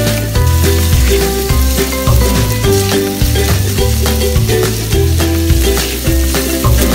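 Background music with a steady bass line of short notes, over diced chicken sizzling as it fries in a pot and is stirred with a silicone spatula.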